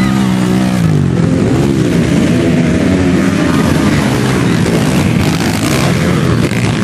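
Motocross dirt bike engines revving, the pitch repeatedly climbing and dropping as bikes work over the jump, with more than one engine heard at once.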